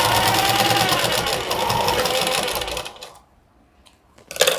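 Domestic straight-stitch sewing machine stitching a seam at a fast, even rhythm with a steady hum, stopping a little under three seconds in. Near the end, scissors snip the thread once.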